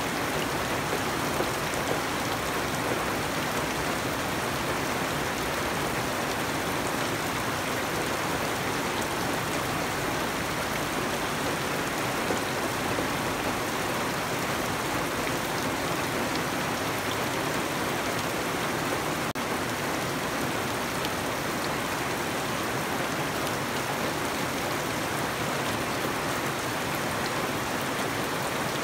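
Steady rain falling on garden foliage and wet, puddled ground: an even, unbroken hiss of drops.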